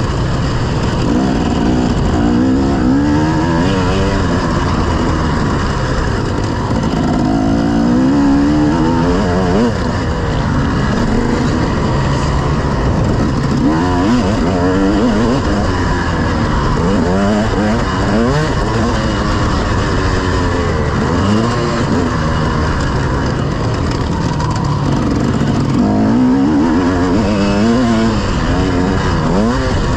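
Several motocross bikes racing, their engines revving up and down overlapping as they accelerate, shift gears and ease off around the track.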